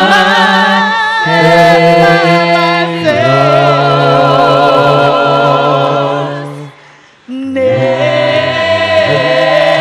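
A cappella gospel vocal group singing long held chords in close harmony, no instruments, with a low voice carrying the bass. The chords shift twice, then the voices fade and drop out for a moment about seven seconds in before the group comes back in on a new chord.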